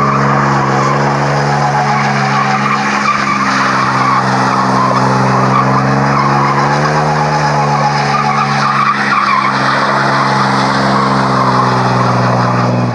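A 1999 GMC Jimmy doing a burnout: the engine is held at high revs while the tires spin and squeal on asphalt. The engine pitch climbs briefly about halfway through, and the sound stops suddenly at the end.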